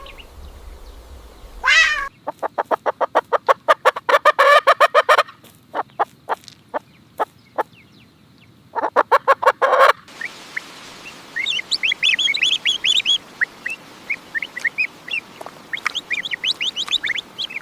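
A cat's meow about two seconds in. Then a domestic fowl gives fast, repeated clucking calls for several seconds, and from about halfway small birds chirp in short, high notes.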